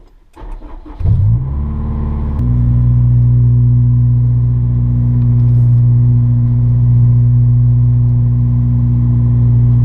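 Honda S2000's four-cylinder engine being started: the starter cranks briefly and the engine catches about a second in, then settles into a steady idle about two and a half seconds in.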